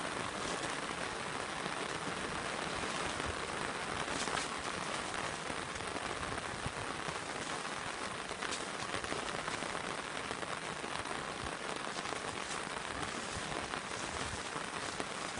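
Steady monsoon rain falling on grass: a constant even hiss, with now and then the sharper tick of a single drop.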